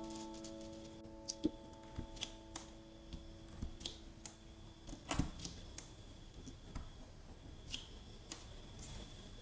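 A held musical chord rings on and fades out over the first five seconds, while hands handling sand-covered sticker paper on a tabletop make scattered light clicks and taps, the sharpest about five seconds in.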